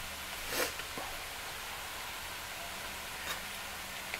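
A metal fork clinks a few times against a small ceramic bowl while picking out whole chipotle peppers, over a steady low hiss.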